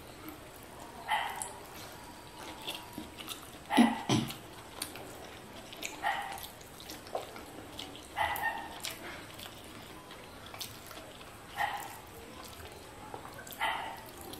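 A dog barking in single short barks, about six times, roughly every two seconds, the loudest about four seconds in. Faint clicks of fingers mixing rice on a plate lie underneath.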